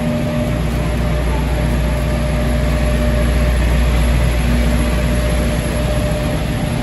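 PeruRail passenger train standing at the platform with its diesel engine idling: a steady low rumble with a faint steady hum above it.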